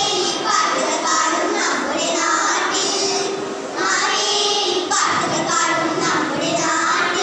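A group of young girls singing a song together, in held phrases with short pauses between.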